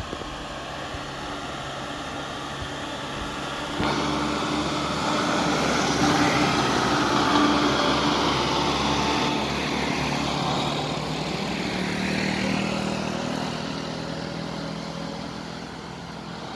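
Road vehicles passing: a steady engine drone, then engine and tyre noise that rises suddenly about four seconds in and peaks. It swells again with a low engine drone around twelve seconds in, then slowly fades.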